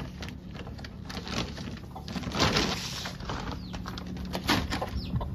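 Chickens clucking softly, mixed with knocks and rustling from handling around the shed door, with a louder rustle about halfway through.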